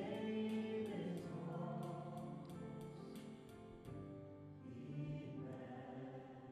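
Choir singing sustained notes with instrumental accompaniment, with a light regular tick about twice a second over the first few seconds.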